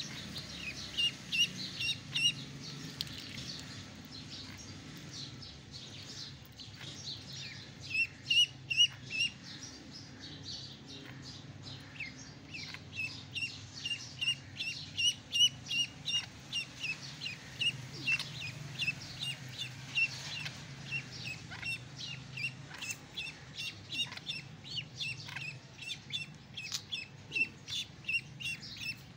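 Ducklings peeping, in quick runs of short high calls that come and go throughout.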